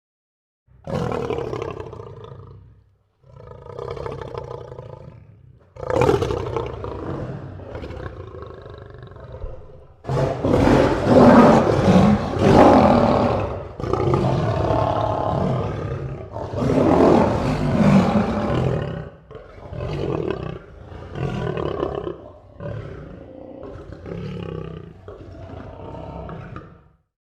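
Lion roaring. The bout opens with a few separate roars, reaches its loudest and longest roars about ten seconds in, then tails off in a run of shorter roars that grow quieter.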